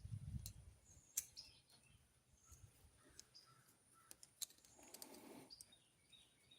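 Near silence: a soft low thump at the start, a few faint clicks and a brief rustle, with faint short chirps in the background.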